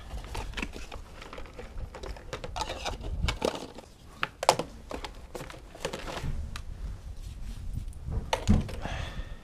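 Small gear being handled and packed into a clear plastic storage box: scattered clicks, knocks and rattles of plastic cases, batteries and cables against the box, with a sharper knock about four and a half seconds in.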